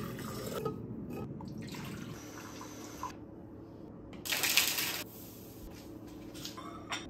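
Water pouring from a plastic filter pitcher into a metal-rimmed tumbler, then a brief loud noise about four seconds in as a small pot is set on the stovetop, and milk glugging from a carton into the pot near the end.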